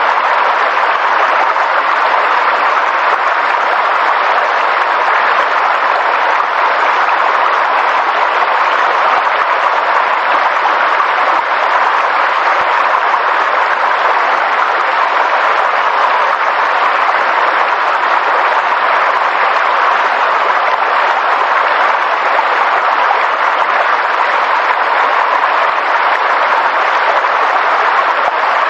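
Steady rushing water noise, an even hiss with no breaks or separate events.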